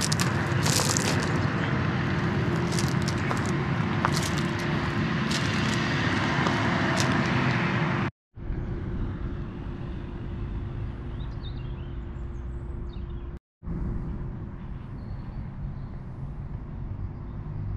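A motor running steadily with a constant hum, with scattered clicks and knocks over the first half. The sound breaks off abruptly twice, for a moment each time.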